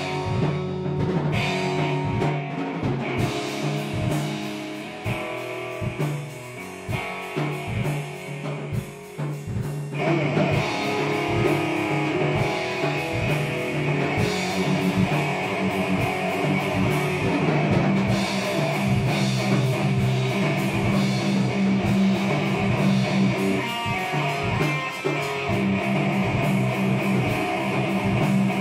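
Instrumental rock jam by a band: electric guitar over a drum kit keeping a steady beat. A sparser, quieter passage gives way about ten seconds in to the full band playing louder and denser.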